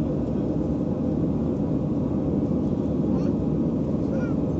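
Airliner cabin noise: a steady low rumble, with faint passenger voices in the background about three and four seconds in.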